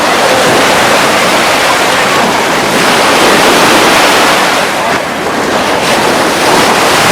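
Atlantic surf breaking and washing on the beach: a loud, steady rush of waves that eases briefly about five seconds in, with wind on the microphone.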